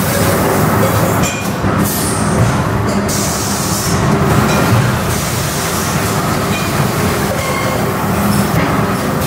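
Loud, steady clatter and rumble of a metal-forming production line, with presses and a conveyor carrying pressed steel mug bodies.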